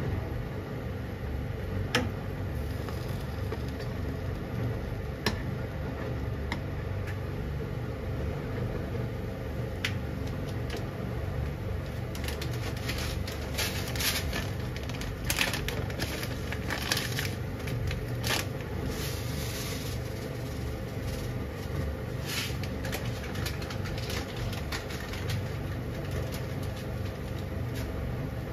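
Chicken pieces boiling hard in a pan of water on a gas stove: a steady low rumble with scattered crackling pops and clicks, busiest about halfway through.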